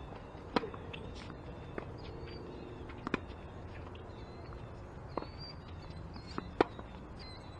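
Tennis ball struck by rackets and bouncing on a hard court during a doubles rally: a sharp pop from the serve about half a second in, then more pops every second or two, the loudest near the end.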